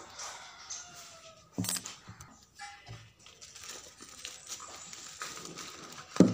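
Plastic parcel wrapping being torn and crinkled by hand, with paper rustling as the envelope inside is pulled out and opened. A thump comes about a second and a half in, and a sharp knock near the end is the loudest sound.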